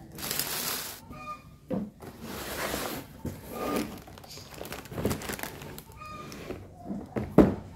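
Handling sounds from unpacking: cloth and a cardboard box rustling, with plastic wrapping crinkling, and a few light knocks. The loudest is a sharp knock near the end, as a stack of cork trivets is set down on the wooden tabletop.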